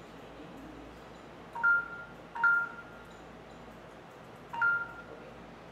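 Three short two-tone electronic beeps from a smartphone as its screen is tapped, each a brief pair of notes with a short ringing fade; the first two come close together and the third about two seconds later.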